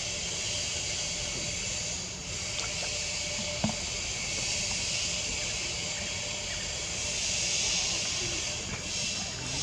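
Steady high-pitched hiss of a forest insect chorus, swelling a little about seven seconds in, with one small click around the middle.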